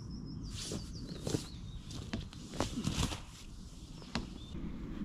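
Single-layer hammock fabric rustling and swishing in several short bursts as a person settles his weight into it and swings back to lie down.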